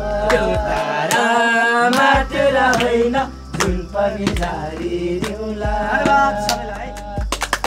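A group of men singing a Nepali folk song together, with hand claps keeping time about once a second. Near the end the claps come faster.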